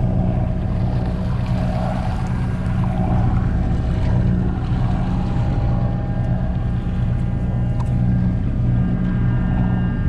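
Sportfishing boat's engine running with a steady low hum.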